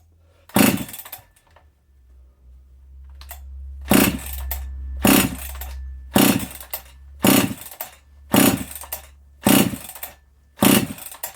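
Ported Husqvarna 268XP two-stroke chainsaw with no exhaust muffler being pull-started. The recoil starter is yanked eight times: once near the start, then after a pause in a steady run about one pull a second. The engine turns over on each pull but does not fire, not even a pop. A low hum runs underneath.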